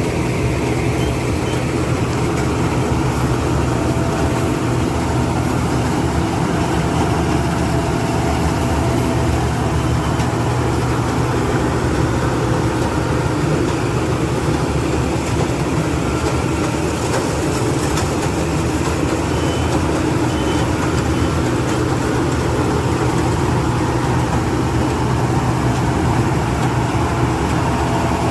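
Rice combine harvester's engine running steadily, a low hum with machinery noise that holds at an even level.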